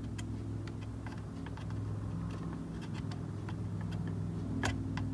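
Soldering iron tip scraping and clicking against the bent-over leads of an IC on the back of a circuit board as they are pushed upright: light, irregular ticks with one sharper click near the end, over a steady low hum.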